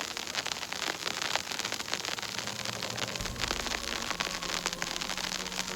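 Snowstorm precipitation pattering steadily as a dense hiss of fine ticks, with a faint low hum underneath.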